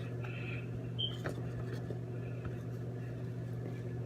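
Steady low hum, like a running appliance or fan, with a few faint clicks and ticks over it.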